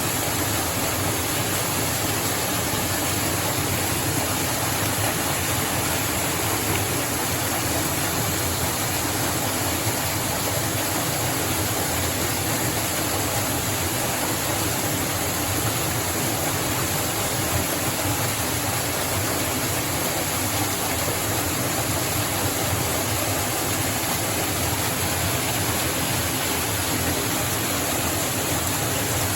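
A waterfall's falling water rushing steadily and evenly, without a break or a change in loudness.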